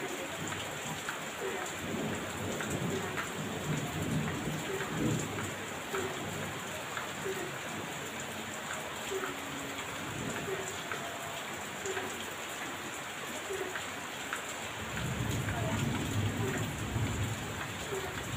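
Heavy rain falling steadily, with thunder rumbling twice: once about two seconds in and again near the end.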